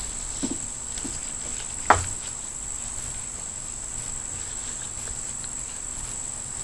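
A few light clicks of hand tools on the engine's cylinder head, with one sharper knock about two seconds in, over a steady high-pitched tone.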